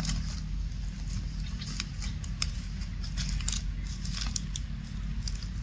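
Short, irregular crackles and clicks of dry leaves and grass as a monkey forages and then walks off through them, over a steady low rumble.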